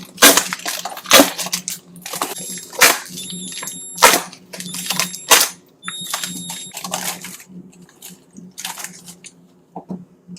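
Food containers, jars and bottles being handled and set down during a refrigerator clean-out: a run of sharp knocks and clinks, a few of them ringing briefly and high.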